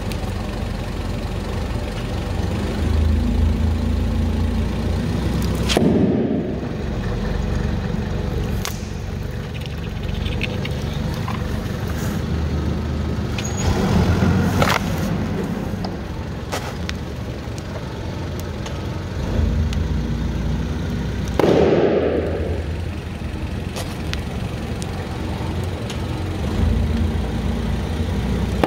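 A heavy vehicle's engine running with a steady low rumble as its tyre rolls over and crushes objects, with four sharp pops of things bursting under it, spaced several seconds apart.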